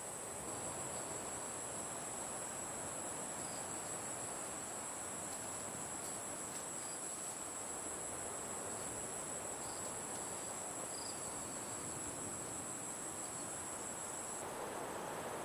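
Insects trilling in a steady high-pitched chorus over a soft even hiss, with a few faint short chirps here and there.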